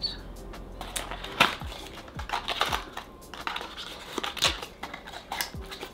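Hands opening a red cardboard perfume box: irregular sharp clicks and taps with scraping and rustling of stiff card, spread through the whole stretch. Faint background music runs underneath.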